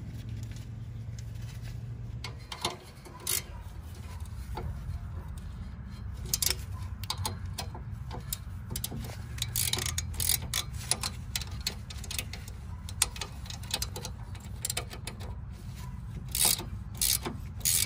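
Hand tools working a stuck, rusty bolt on a Toyota Camry's rear suspension: scattered metallic clicks and knocks, like a ratchet wrench being worked, coming more densely near the end. A steady low hum sits underneath.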